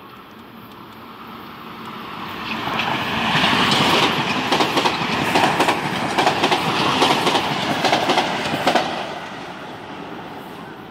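Metro-North commuter train passing close by at speed: its rumble builds, peaks with a rapid clatter of wheels over the rail joints for about five seconds, then fades as it goes by.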